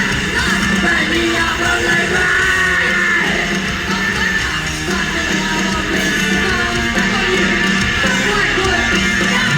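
Punk rock band playing live and loud: electric guitars, bass and drums under a singer's vocals, continuous throughout.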